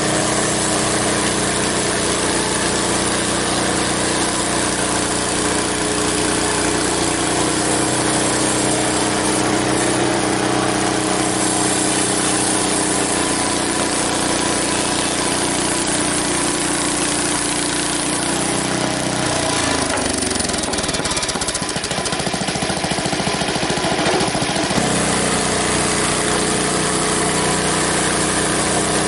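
Frontier OS23 portable band sawmill running, its engine-driven band blade working on a log. About 19 seconds in the engine note drops and turns ragged, then returns to a steady note about 25 seconds in.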